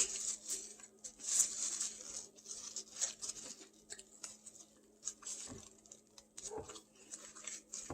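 Eating sounds close to the microphone: chewing food, with irregular soft clicks and crackles.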